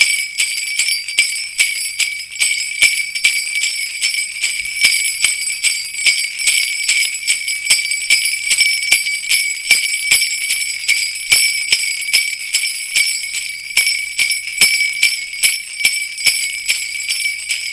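Jingle bells, such as sleigh bells, shaken continuously in an uneven rhythm of several jingles a second, with a bright high ringing.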